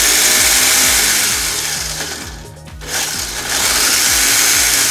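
Electric motor and drivetrain of a WLtoys 144001 1/14-scale RC car spinning its wheels in the air under throttle: a loud high whir that winds down about halfway through and then revs up again, a bench test showing the car works.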